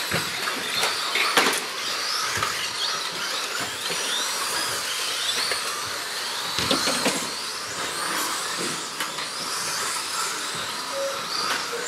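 Several electric 2WD RC buggies racing, their motors whining and sweeping up and down in pitch as they accelerate and slow, over tyre noise, with a few short knocks.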